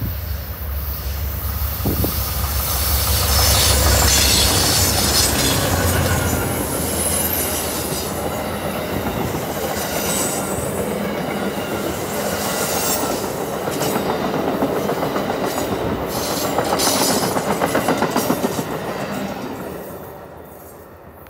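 Amtrak diesel-hauled passenger train passing close by: the locomotive's low rumble is loudest a few seconds in. The cars' wheels then clatter steadily over the rails with high-pitched squeals, and the sound dies away near the end as the last car goes by.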